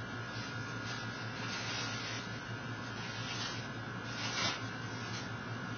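Steady hum with a thin high tone above it, under soft rustling and shuffling of someone moving about; a plastic shopping bag rustles loudest about four seconds in.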